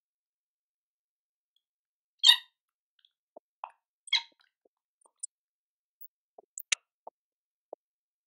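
A scattered series of short light clicks and taps from screws and a screwdriver working on the marble cutter's housing as its screws are fitted, the two loudest about two and four seconds in.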